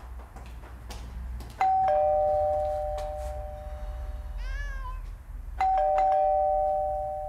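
Two-tone ding-dong doorbell rung twice, about four seconds apart, each ring a higher note then a lower one that rings on and fades. Between the rings a cat meows once.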